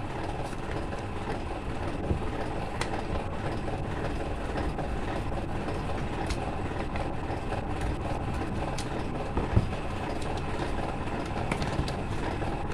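Steady background rumble with a few faint clicks and taps of plastic as a double light switch and its surface-mount box are handled and fitted over the wires. One tap is a little louder, about three-quarters of the way through.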